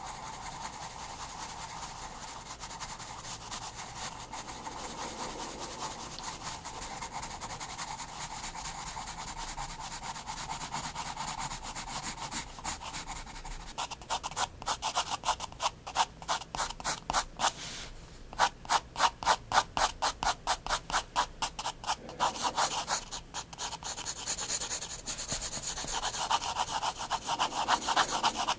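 Soft 9B Prismacolor Turquoise graphite pencil scratching across sketchbook paper. It starts as steady continuous shading, then turns to quick back-and-forth hatching strokes, about four a second, broken by two short pauses.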